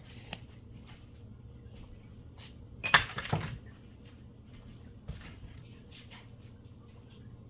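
Small kitchen handling noises: scattered light clicks and knocks, with one sharper clatter about three seconds in.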